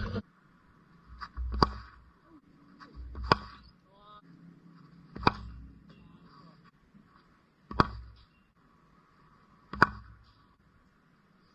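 Cricket bat striking the ball in practice nets: five sharp cracks about two seconds apart, some preceded by a fainter tick.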